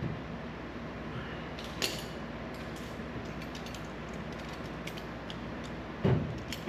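Sheet-metal splash panel being worked into place in a VW Bus's rear wheel well, with a few light metal scrapes and clicks and a louder knock about six seconds in, over steady shop noise.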